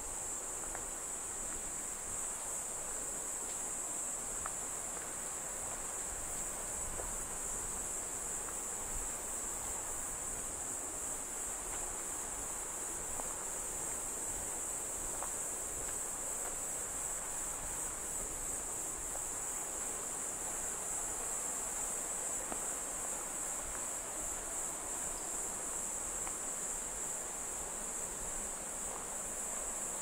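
A steady, high-pitched chorus of insects drones without a break, over the even rush of a mountain stream in the valley.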